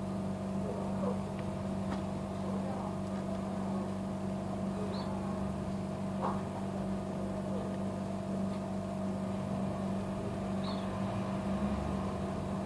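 Steady electrical hum with a fan-like drone, holding two fixed pitches, and a few faint ticks.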